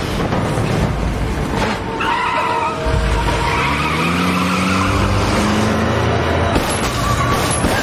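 Car engine revving, its pitch climbing from about three seconds in, with tyres squealing and skidding from about two seconds in.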